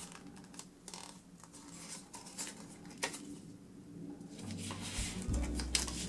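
A sheet of paper rustling and crackling in irregular bursts as it is folded and creased by hand.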